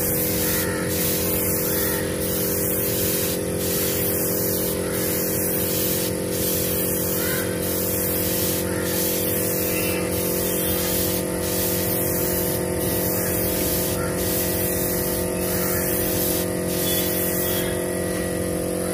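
Compressed-air spray gun hissing steadily as it sprays wood sealer, over a steady hum from the air compressor.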